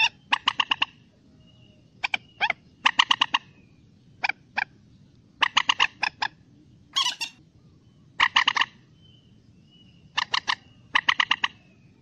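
Common moorhen calling: runs of rapid clucking notes, two to seven notes to a run, with short pauses between runs and one harsher single call about seven seconds in.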